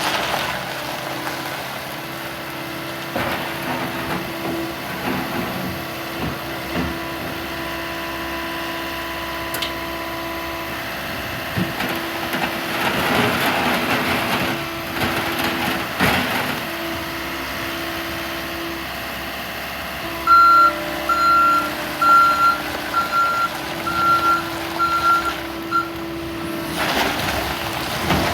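John Deere 320G skid steer's four-cylinder diesel running steadily. Some twenty seconds in, its backup alarm starts beeping, about two beeps a second for roughly six seconds.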